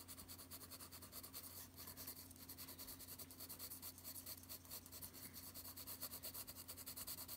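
Graphite pencil scratching faintly across drawing paper in quick, short strokes, several a second, the pencil held on its side to lay down fur texture.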